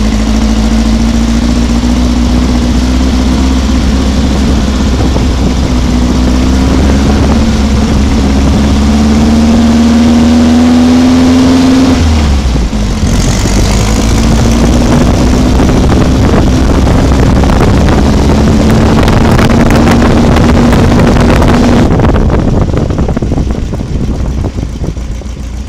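VW-based off-road buggy's engine pulling under throttle. Its note climbs steadily, breaks and dips about twelve seconds in as a gear is changed, climbs again, then drops away near the end. Wind and road noise run throughout over the open car.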